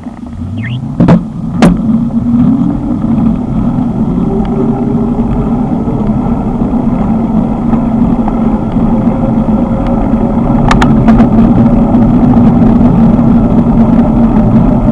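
A small engine speeds up over the first couple of seconds, then runs steadily at speed under loud wind and road noise. Sharp clicks come about a second in and again about eleven seconds in.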